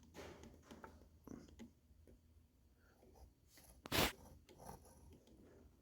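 A torque wrench gives one sharp click about four seconds in as a bolt reaches the set torque, just under 25 foot-pounds. A few softer clicks and rustles of the wrench being handled come before it.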